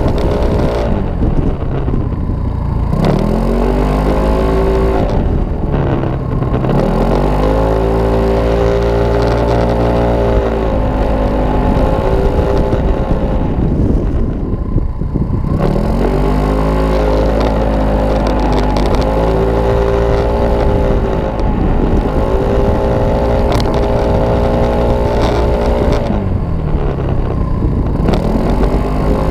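Kymco Racing S scooter engine running hard at speed, its revs dropping sharply as the throttle closes about four times, then climbing back and holding high.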